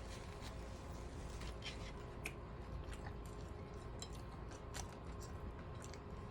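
Mouth smacking and chewing on a BLT sandwich: scattered soft wet clicks and smacks.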